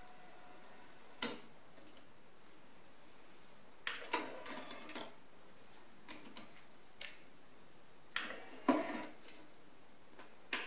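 Sony TC-K990ES cassette deck being handled: single mechanical clicks and two short runs of plastic clatter as the cassette door is worked and a cassette is handled in the open tape well. A sharp click near the end as the power button is pressed.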